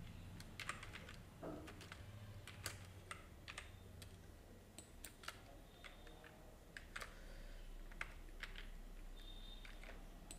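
Faint typing on a computer keyboard: scattered, irregular keystrokes as a short title is typed.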